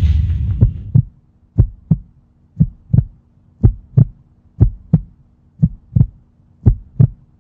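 Heartbeat sound effect: deep double thumps, lub-dub, about once a second, over a faint steady hum. The tail of a loud boom dies away in the first second.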